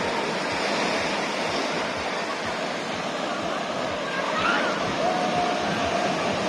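Ocean surf: big waves breaking and washing up the shore in a steady rush.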